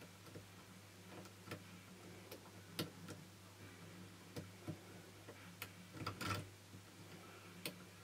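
Faint, irregular metallic clicks of a pick and tension wrench working the pin tumblers of a brass Securit euro cylinder lock, with a small cluster of clicks about six seconds in. A steady low hum runs underneath.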